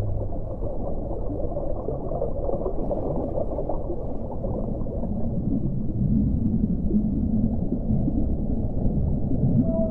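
Muffled underwater ambience: a dense low rumble with gurgling, with nothing above the low and middle range. Near the end a long, steady pitched call starts.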